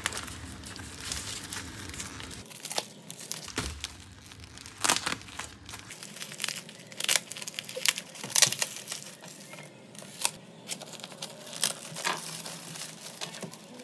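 Plastic parcel wrapping being cut with scissors and torn open by hand: irregular crinkling, crackling and tearing of the plastic.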